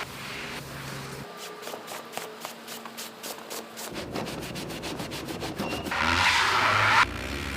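Scrubbing on a car's surface during detailing: a quick, even run of rubbing strokes, several a second, then a loud hiss lasting about a second near the end that cuts off sharply.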